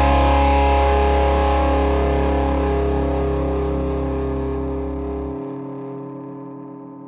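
Final chord of a rock song on distorted electric guitar, left to ring out and slowly fade. A deep low note under it cuts off about five seconds in.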